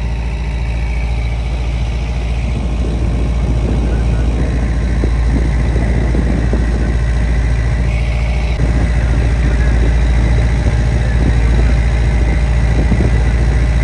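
Fishing boat's engine running steadily under way: a loud, unbroken low drone.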